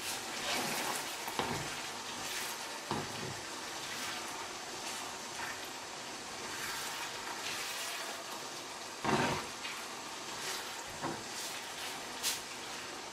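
Minced meat sizzling steadily in a frying pan while it is stirred, with occasional short scrapes and knocks of the utensil against the pan, the loudest about nine seconds in.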